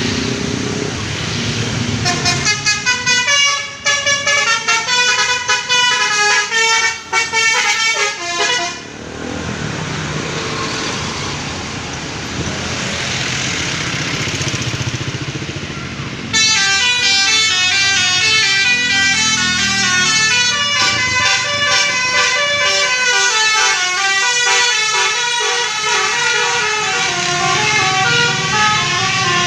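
Bus telolet (basuri) multi-tone melody horns playing quick runs of stepping notes, once from about 2 s to 9 s and again from about 16 s onward. In between there is a stretch of steady noise.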